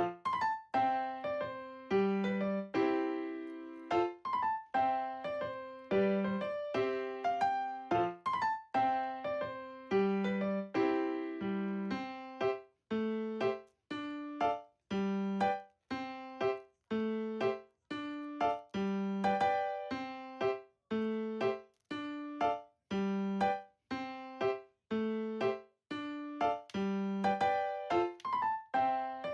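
Background music: a light keyboard tune of short piano-like notes that fade after each strike, played at an even pace.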